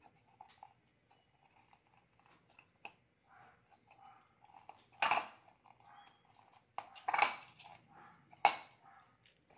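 Lemon half being twisted and pressed on a plastic hand juicer: three brief loud scraping squelches about five, seven and eight and a half seconds in, over faint repeated whining.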